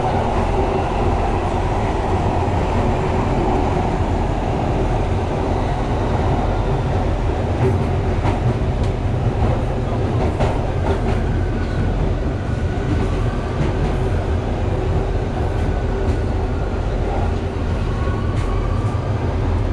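London Underground Victoria line train running through its tunnel, heard from inside the carriage: a steady loud rumble of wheels on rail. Occasional short clicks come from the track, and faint whines come in during the second half.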